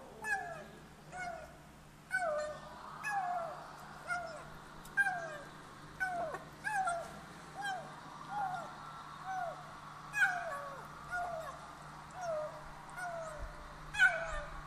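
Kitten making short mews that fall in pitch, about two a second, as it eats: the 'nom nom' noises some kittens make over food. Faint clicks of eating come between them, with a sharp knock near the end.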